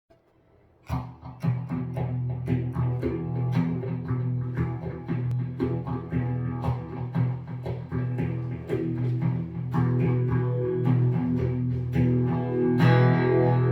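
Band playing the instrumental intro of a song on guitar and bass, starting about a second in.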